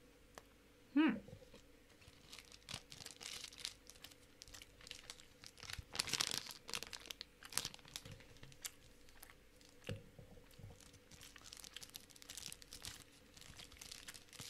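Snack wrapper crinkling and tearing as a small chocolate is handled and unwrapped: irregular rustles and crackles, busiest about six seconds in. About a second in there is a short vocal hum that falls in pitch.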